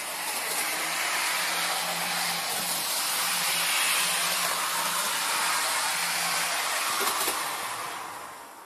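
Heljan Class 86 OO-gauge model electric locomotive running fast along the track: a steady rush of wheels on rail over a faint motor hum, fading away near the end.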